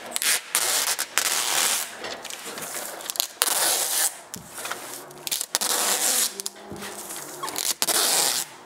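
Tyvek house wrap rustling and crinkling in stop-start bursts as the sheet is handled and pressed up against the ceiling sheathing, with a few sharp clicks.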